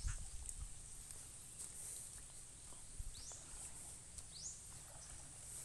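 Outdoor rural ambience: a steady high-pitched insect drone, with a few short rising chirps about three and four and a half seconds in. Low thumps and rumble run underneath.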